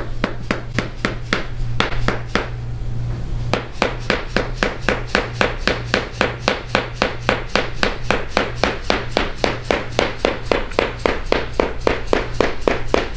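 Rubber mallet tapping rapidly and evenly on a rod held against the back of the thigh, percussive 'hammer therapy' on the muscle. A few strikes, a short lull around two to three seconds in, then a steady run of about five strikes a second.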